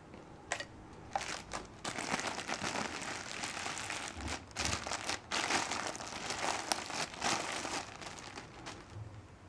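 Clear plastic packaging bag crinkling and rustling as it is pulled off a desk lamp's base, with a few sharp snaps, starting about a second in.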